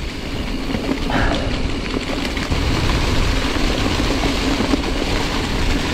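Mountain bike rolling fast over a dry, leaf-covered dirt trail: steady tyre and leaf noise with the bike rattling, and wind buffeting the action camera's microphone.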